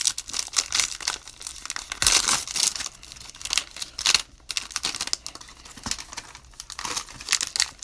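Cellophane wrappers of trading-card cello packs crinkling and tearing as the packs are opened by hand, in quick crackly bursts with the loudest about two seconds in.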